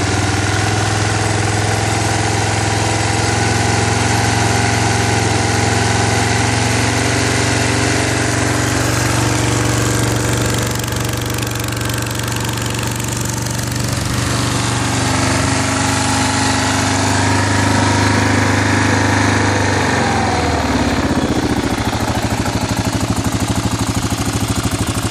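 Kawasaki KLR650's single-cylinder four-stroke engine idling steadily, shortly after a cold start. About twenty seconds in, the idle speed drops and settles lower.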